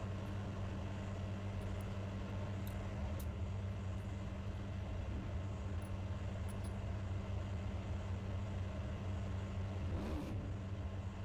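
A steady low hum under a background noise, with a few faint light clicks.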